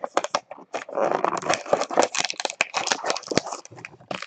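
Plastic packaging on a sealed box of trading cards crinkling and crackling as it is handled and torn open: a dense run of crackles and clicks, thickest in the middle.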